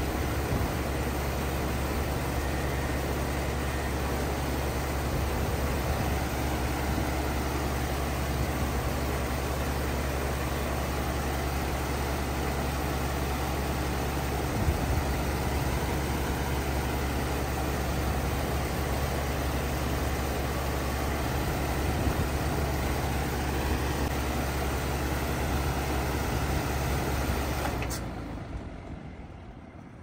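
Carrier Comfort (25HCE) 3-ton heat pump outdoor unit running steadily in heat mode, with the LG scroll compressor's low hum under the rush of the outdoor fan. About two seconds before the end the low hum cuts off abruptly and the rest of the sound fades away as the unit shuts down.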